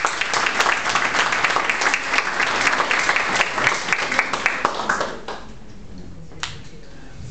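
Small audience applauding: many hands clapping, which dies away about five seconds in. A single sharp knock follows near the end.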